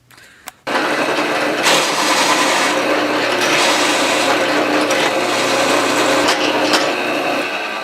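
A power drill turning a cutter through thin sheet metal, switched on abruptly about a second in: a steady motor hum under a harsh metal-on-metal scraping. The hum stops near the end.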